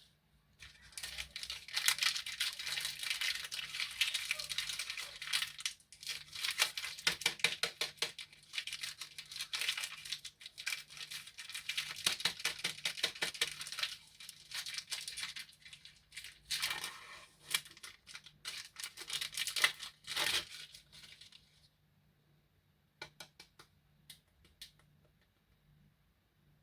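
Plastic candy wrapper crinkling and tearing in long crackly stretches, then a few light clicks near the end.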